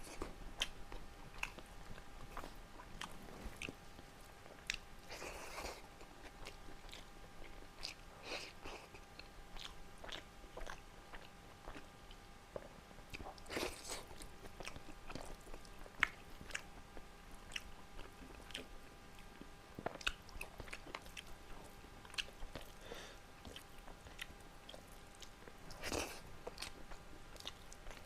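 A person chewing and biting food close to the microphone: many small wet mouth clicks and smacks, with a few longer, louder bites. A faint steady hum runs underneath.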